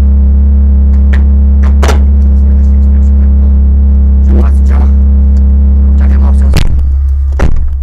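Offroad Jeep's winch hauling on a taut cable under load: a loud, steady drone that cuts off about six and a half seconds in, with a few short knocks over it.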